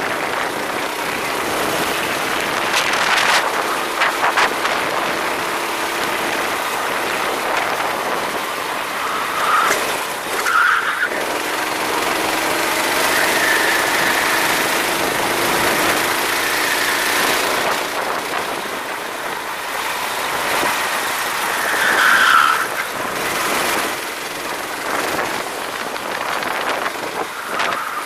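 Go-kart running at race pace, heard onboard: a steady rush of wind and engine noise, with the engine's pitch rising and falling a few times.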